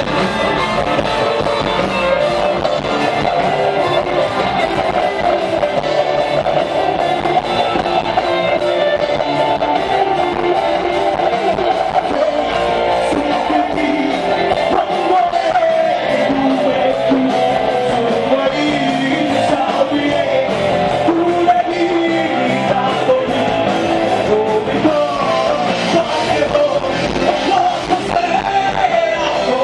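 Rock band playing live: a male singer over electric guitars and a drum kit, loud and continuous.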